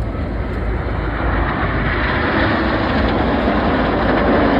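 Jet noise from a formation of BAE Hawk T1 aircraft passing overhead, their Rolls-Royce Adour turbofans giving a steady rushing sound that grows slowly louder.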